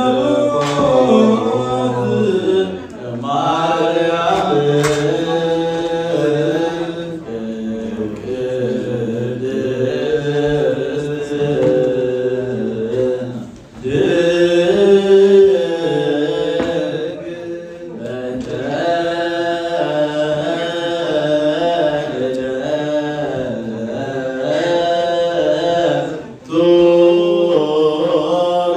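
Orthodox Tewahedo chant: male voices singing a Nativity hymn in Ge'ez through a microphone, in slow, long-held melismatic phrases with short breaks between them.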